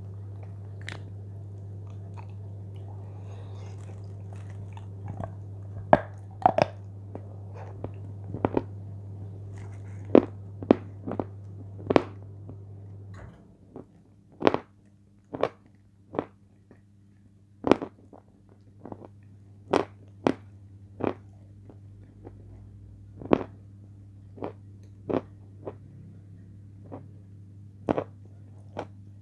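Crunchy chips coated in cream being bitten and chewed close to the microphone, with sharp separate crunches about once a second. A steady low hum underneath drops away about halfway through.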